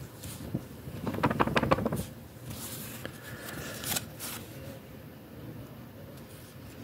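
Paper banknotes, washed and ironed stiff, rustling and crackling as they are flexed and flicked between the fingers, with a quick rapid flutter about a second in.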